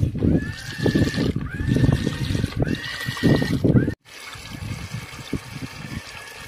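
JJR/C amphibious 4x4 RC truck churning through muddy creek water: the tires slosh and splash while the electric motors whine, the whine rising in pitch with each of three throttle bursts. A little past halfway the sound cuts out for an instant, then the churning goes on quieter under a steadier motor whine.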